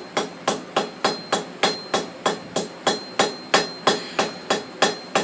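Blacksmith's hand hammer striking a hot metal bar on the anvil in a steady rhythm, about three blows a second, each with a short metallic ring, rounding up the tapered end of the piece.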